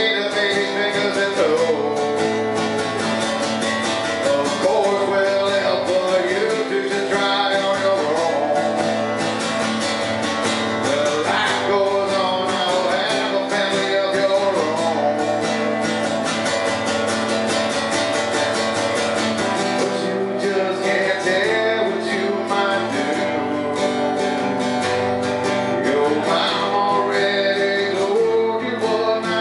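Acoustic guitar strummed in a solo live performance, a song played steadily all the way through.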